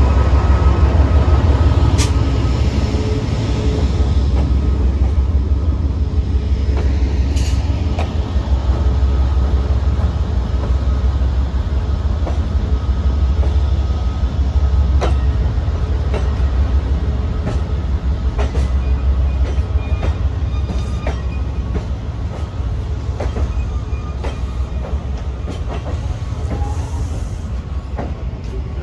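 Amtrak P42 diesel locomotive's engine running with a low rumble as the train rolls slowly past, followed by Amfleet passenger cars whose wheels click irregularly over rail joints. The rumble eases a little as the cars go by.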